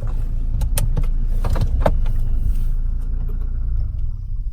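Car engine running low as the car creeps to a stop, with a few light clicks. The engine noise drops away near the end.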